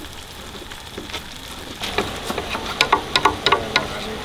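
Water bubbling at the boil in a large metal cooking pot. From about two seconds in, a quick run of sharp clinks and knocks of kitchen utensils.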